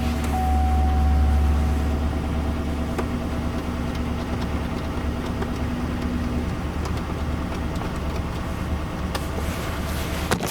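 A 2013 Chevy Silverado 1500's 5.3-litre V8 idling steadily just after start-up. Its misfire is believed repaired and its idle has just been relearned. A faint steady whine over the engine stops about six and a half seconds in.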